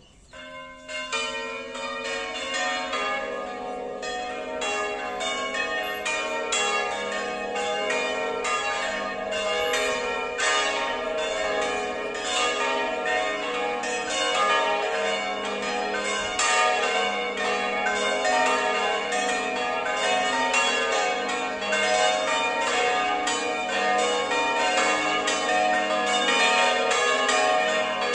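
A five-bell church concerto tuned in A-flat major (A♭3, B♭3, C4, D♭4, E♭4), electrically rung, sounding all together in full peal (plenum) for the festive noon Angelus. The bells start about a second in and then ring on with dense, overlapping strokes.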